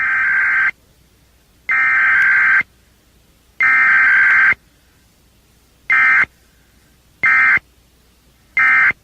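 Emergency Alert System SAME digital data bursts of a 1997 required weekly test: three longer buzzy header bursts about a second apart, then three short end-of-message bursts.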